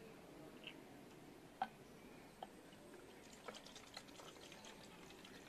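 Faint clicks and taps of a plastic water bottle being handled, opened and tipped over a glass: one sharper click about a second and a half in, then a small cluster of taps near the end.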